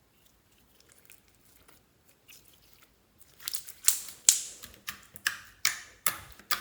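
Slime being squeezed and mixed by hand, making crackles and pops. They are faint at first, then a run of louder crackling squishes comes about every half second over the last three seconds.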